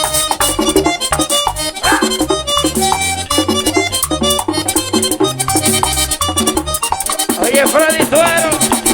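Merengue típico band playing: an accordion melody over the fast steady scrape of a güira, with tambora drum and a bass line underneath.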